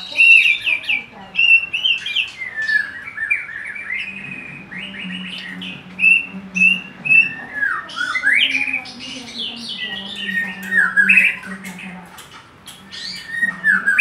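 White-rumped shama singing a long, varied song of loud whistles, rising and falling sweeps and sharp chips, one phrase after another with only short pauses.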